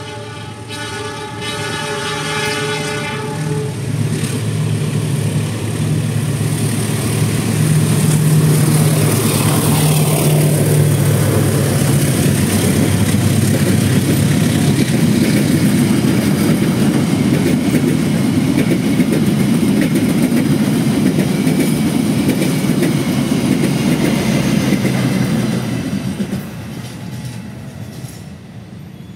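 A diesel-electric locomotive hauling the Sancaka passenger train sounds a horn blast of about three seconds as it approaches. Its engine drone then swells loudly as it passes close by, followed by the steady rumble of the coaches' wheels on the rails. The noise falls away suddenly near the end as the last coach goes by.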